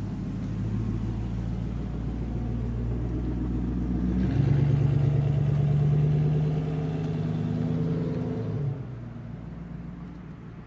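Car engine pulling away under power: its note steps up and grows louder about four seconds in, holds steady, then drops off near the end.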